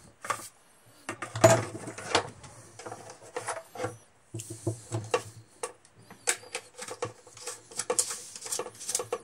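Remington 870 pump shotgun being reassembled by hand: irregular clicks, knocks and scrapes of metal and plastic parts as the forend and the fittings at the end of the magazine tube are worked into place.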